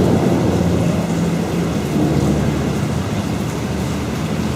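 Heavy rain pouring down in a thunderstorm, a dense steady hiss over a low rumble.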